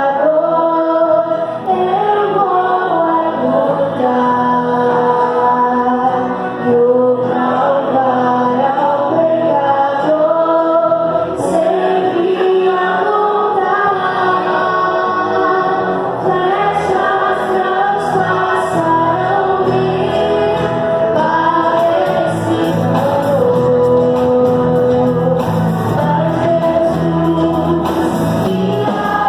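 Christian praise music: voices singing a melody over steady instrumental accompaniment.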